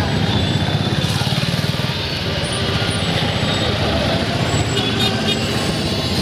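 Street traffic close by, dominated by a motor vehicle's engine running with a steady, dense low rumble, and a few faint high tones over it.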